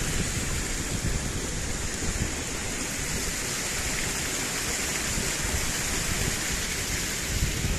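Steady rush of a mountain stream's water pouring over the lip of a waterfall, an even noise with no breaks.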